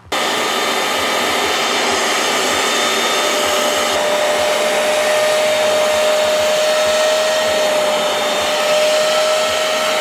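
Hoover CleanSlate portable carpet and upholstery extractor running, its suction motor drawing water up through the wide brush tool. The noise starts abruptly and holds steady, with a steady whine over the rush of air.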